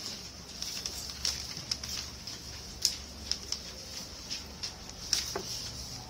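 Sheets of coloured paper rustling and crackling in short irregular bursts as they are folded, handled and smoothed flat on a desk, over a steady low hum and high hiss.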